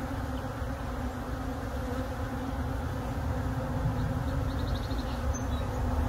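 Honeybees massed on an open hive frame, buzzing in a steady low drone.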